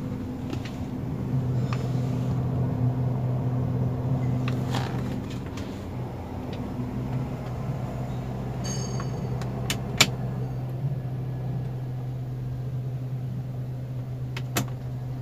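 Low, steady droning hum inside the cabin of a Toyota Rush standing with its engine idling. This is the rumbling drone the owner is tracing. It swells a little for a few seconds after the start, with a few sharp clicks, the loudest about ten seconds in.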